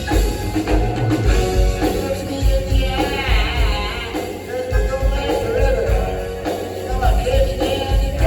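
Rock band playing live: a steady kick-drum beat under electric guitars, with singing.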